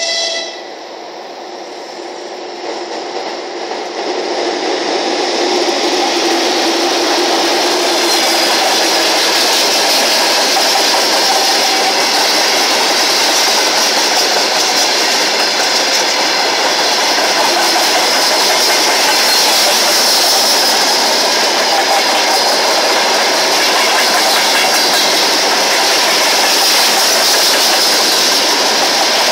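Freight train of tank cars hauled by a Soviet-built VL10 electric locomotive passing close by. A short pitched tone sounds right at the start. The rumble of the locomotive and the wagons then builds over the first few seconds and stays loud and steady.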